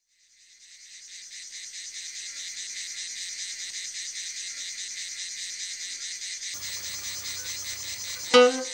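A steady chorus of chirping insects with a rapid, even pulse, fading in over the first second or two. Near the end a loud plucked-string note sounds as music begins.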